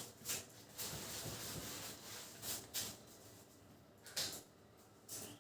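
Writing strokes: a series of short scratchy rubs with brief pauses between them, the loudest about four seconds in.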